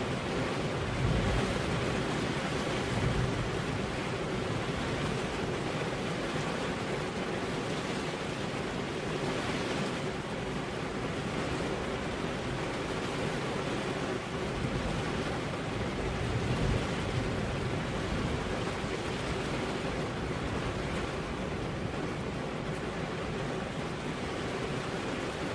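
Steady rain with wind, a continuous hiss, with a few brief low rumbles of thunder near the start and again about two-thirds of the way through.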